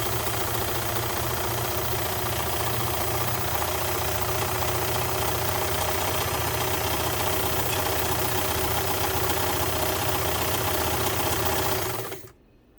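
Singer 185K sewing machine running fast, sewing a line of test stitches: a steady, rapid mechanical running sound that cuts off suddenly near the end. The machine is going flat out.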